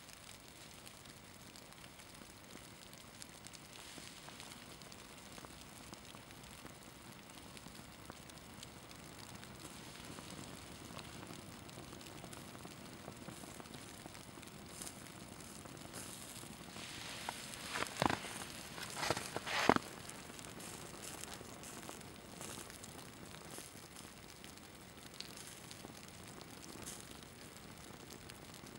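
Small flame on a burning polyester sports shirt, crackling faintly as the synthetic fabric melts, with a short cluster of louder snaps about two-thirds of the way through.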